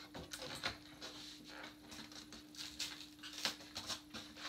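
Light rustling and scattered small clicks and taps as a furry spider prop is handled and pulled from its cardboard box insert, the sharpest click about three and a half seconds in.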